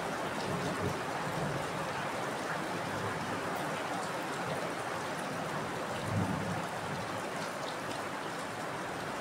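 Heavy rain falling steadily in an even hiss, with a brief low bump about six seconds in.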